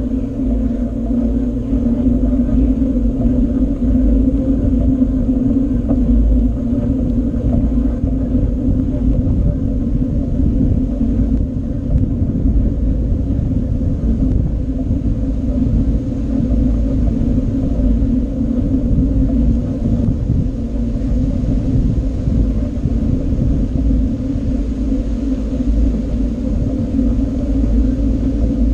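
Steady low rumble of wind buffeting and tyre rolling noise on an action camera's microphone during a bicycle ride, with a constant low hum running under it.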